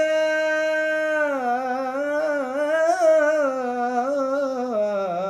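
A man's voice chanting Hebrew haftarah cantillation in the Constantine (Algerian Jewish) tradition: one long melismatic phrase, a held steady note for about a second, then a wavering, ornamented line that drops in pitch near the end.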